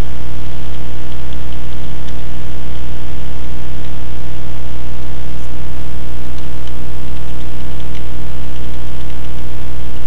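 Loud, steady electrical mains hum with many evenly spaced overtones, with faint, irregular keyboard key clicks of typing over it.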